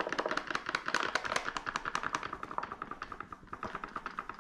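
Paper flour bag being shaken and tapped over a bowl to sift flour out, a fast run of light papery taps, about ten a second, getting fainter toward the end.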